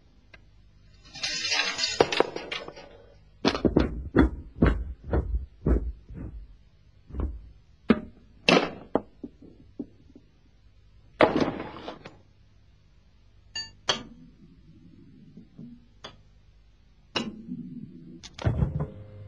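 Car parts knocking, clinking and rolling into one another in a chain reaction. A rolling scrape about a second in is followed by a quick run of sharp knocks and clinks, another scrape near the middle, scattered taps, and a rolling rumble near the end.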